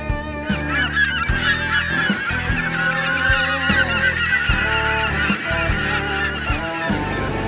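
A flock of geese honking, many calls overlapping, starting about half a second in and dying away near the end, over background music with a steady beat.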